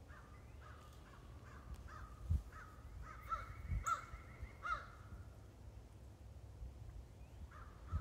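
Crows cawing in a quick run of repeated calls, falling quiet partway through and starting again near the end. A couple of low thumps sound on the microphone, the loudest about two seconds in.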